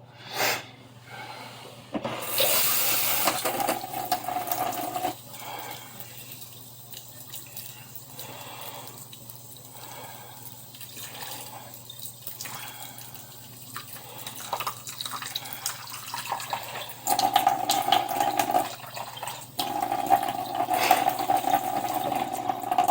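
Tap water running into a bowl of dry spaghetti, filling it. The stream is strongest from about two seconds in for a few seconds, quieter in the middle, and strong again near the end with a steady filling tone.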